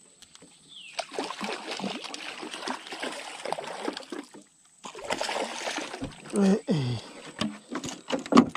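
Water splashing and trickling in uneven bursts, with a short break about halfway through.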